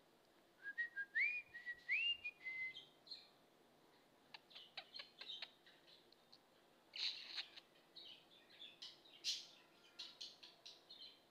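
Budgerigar whistling a few short rising notes, then chattering in quick clicks and short squeaky chirps.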